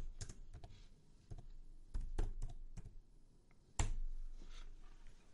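Computer keyboard keystrokes and mouse clicks, a scattered handful of light clicks with one louder click a little before four seconds in.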